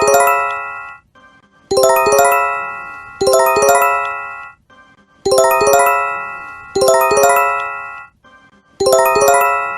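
Japanese J-Alert emergency alert chime: quick rising runs of bell-like tones in pairs, each run ringing out and fading over about a second, the pair repeating about every three and a half seconds.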